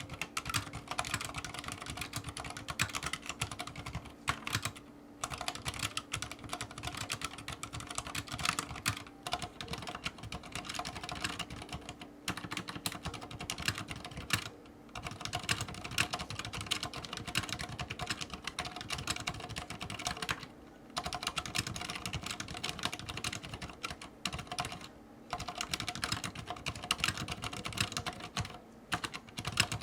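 Continuous fast typing on a CROAD C604 Cherrymium mechanical keyboard with Cherry MX Silent Red linear switches and custom keycaps: a dense stream of soft keystroke clicks, broken by short pauses every few seconds.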